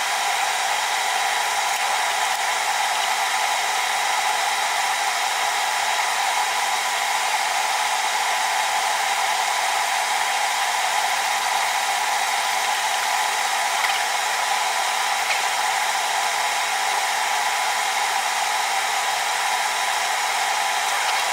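Steady, unbroken rushing hiss with a faint hum through it, from the heating equipment bringing a steel anvil-stump strap up to a black heat so it will expand.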